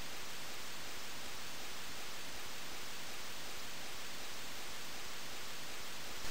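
Steady hiss of a recording's noise floor, with nothing else heard; a brief louder moment comes right at the end.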